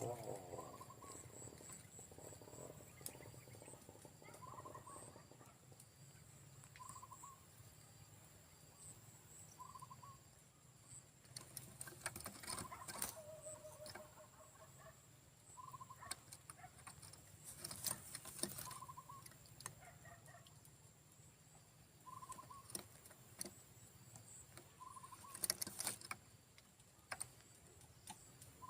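Faint, short cooing notes of a zebra dove (perkutut), repeated every couple of seconds. Three bursts of sharp rattling clicks break in, with a faint steady high-pitched tone underneath.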